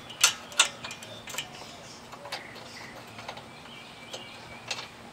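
Socket ratchet clicking in short, irregular strokes as a small 10 mm bolt is worked in on the rear suspension: scattered sharp clicks, several close together in the first second and a half, then sparser.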